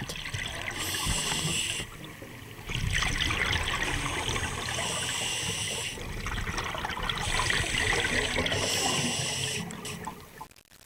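Underwater water noise: bubbling and hissing that swells and fades several times, dropping briefly about two seconds in and fading out near the end.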